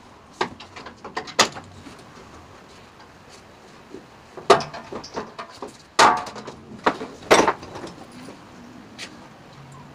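Irregular sharp clicks, knocks and clunks of plastic bumper trim and its fasteners being worked off a pickup's rear steel bumper, with the loudest knocks in the middle and later part.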